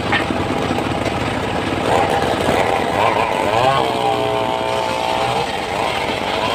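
Circular saw running and cutting mahogany wood: a steady loud machine noise with a whine that bends in pitch and holds level for about a second past the middle.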